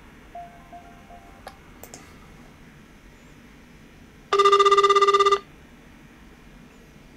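Telephone ringback tone heard over the line while an outgoing call rings: one warbling ring about a second long, about four seconds in, with the next ring starting just at the end. A few faint short beeps come about half a second to a second and a half in.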